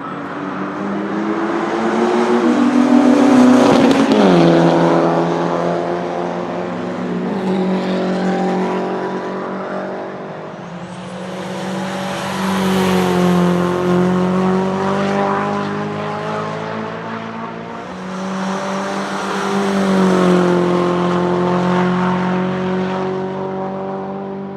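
Racing cars passing at speed one after another on a circuit, each engine note swelling and then dropping in pitch as it goes by. The loudest passes come about three seconds in, about thirteen seconds in and about twenty seconds in.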